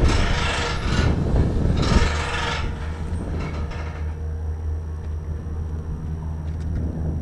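Fuel hose dragging and scraping over asphalt as it is pulled out from the pump, in rasping bursts that stop about three seconds in. A steady low hum carries on underneath.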